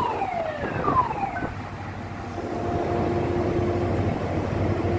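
A few quick falling whistle-like tones in the first second and a half, then a steady engine drone with a low hum that sets in about two seconds in.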